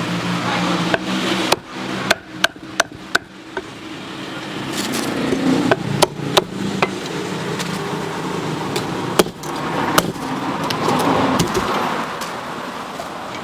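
Cleaver chopping on a wooden cutting board: a quick run of sharp chops in the first few seconds, then scattered single chops, over steady background noise.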